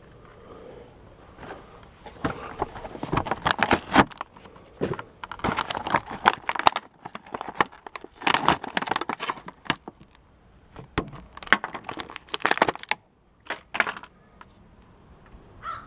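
Clear plastic blister bubble of a Starting Lineup action figure crinkling and crackling in irregular bursts as it is worked open by hand and the figure pulled out, followed by a few light clicks.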